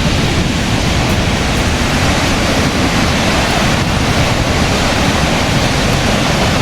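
Burney Falls, a big waterfall in heavy flow, heard close up: a loud, steady rush of falling water.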